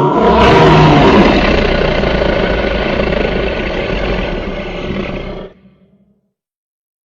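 Dinosaur roar sound effect: one long, rough roar that starts abruptly, is loudest in its first second, and slowly fades over about five and a half seconds before dropping away.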